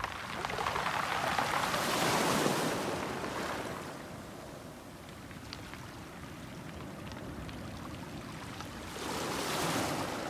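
Small sea waves washing onto a pebble beach: the wash swells and fades twice, loudest in the first few seconds and again near the end, with a few faint clicks in the quieter stretch between.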